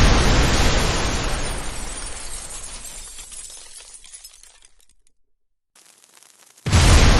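Sound-effect fire explosion with shattering glass: a loud blast with breaking glass that dies away over about five seconds, then after a brief silence and a faint lead-in, the same blast hits again near the end as the effect loops.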